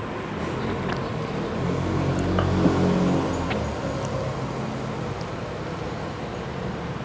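A motor vehicle's engine hum swells and fades about halfway through, over a steady background hum. A few small clicks of eating and drinking sound at the table.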